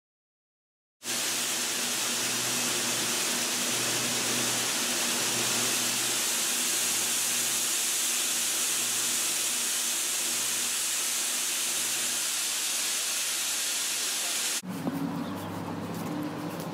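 A loud, steady rushing hiss with a faint low hum pulsing slowly beneath it, starting about a second in. Near the end it cuts off suddenly into a different, deeper sound with scattered clicks.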